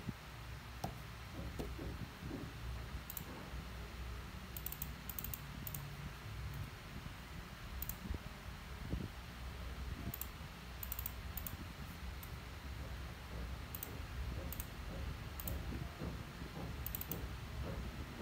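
Xiangqi (Chinese chess) pieces clicking as they are picked up, slid and set down on the board mat, in short clusters of light clicks every second or two, over a low steady hum.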